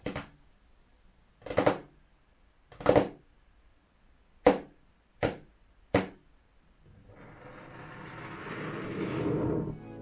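Fingers tapping and scratching on a dark textured surface: six separate strokes, the last three quicker and sharper. Over the last three seconds a rustling rubbing noise grows louder.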